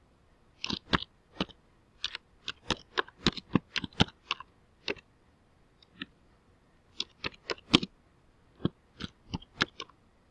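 Typing on a computer keyboard: an uneven run of single key clicks, broken by a few short pauses.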